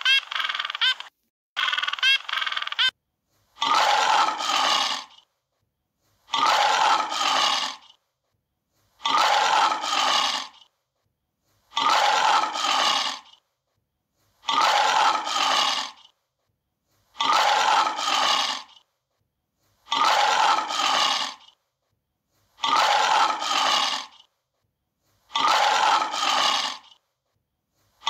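Penguin braying in short honking calls for the first few seconds. Then a lion roaring, one call of about a second and a half repeated nine times, roughly every 2.7 seconds, the same recording looped.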